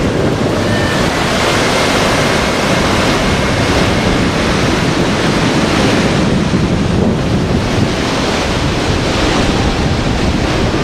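Atlantic Ocean surf breaking and washing up a sandy beach in a steady rush, with wind buffeting the microphone.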